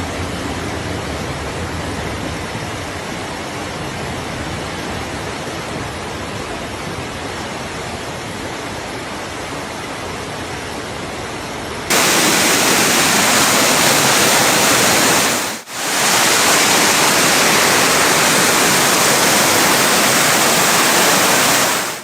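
Rushing floodwater, a steady loud rush of noise. It becomes abruptly louder and brighter a little past halfway, then drops out for an instant about two-thirds of the way through.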